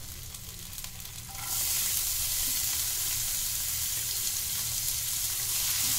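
Chopped onion and grated ginger frying in hot ghee in a pan, a steady sizzle that grows louder about a second and a half in and then holds.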